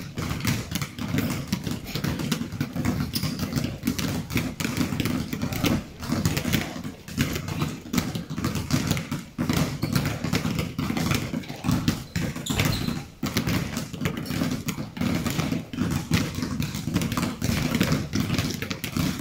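Many basketballs being dribbled at once on a gym floor: a dense, continuous patter of overlapping bounces.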